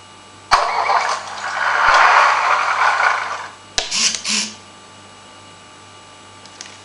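Sound effect played by an RC tracked vehicle's sound module through its small loudspeaker: a hissing noise for about three seconds, then two short bursts, over a faint steady electrical hum.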